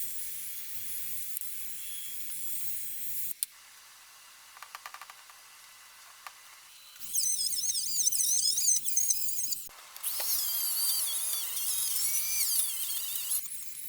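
A high-speed power tool working on metal: two loud bursts of a high whine whose pitch wavers as the load changes. Before them come a few seconds of steady hiss and a quiet gap with faint ticks.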